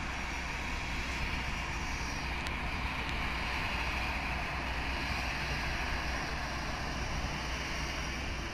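Airbus A320-family jet airliner taxiing, its engines running steadily at low thrust: an even rushing noise with a faint high whine over a low rumble.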